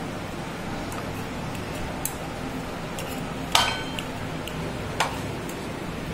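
A few light clinks of kitchen utensils against dishes over a steady low hum, the loudest a ringing clink about three and a half seconds in.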